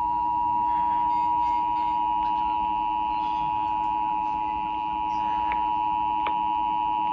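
Emergency Alert System attention signal over FM radio: two steady pure tones sounding together at about 853 and 960 Hz, held without a break as the alert that an emergency message follows.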